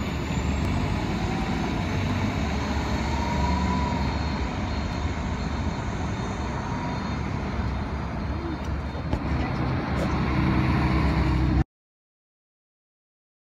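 Articulated city bus running as it pulls away from the stop, heard as steady engine and traffic noise. The sound cuts off abruptly into dead silence near the end.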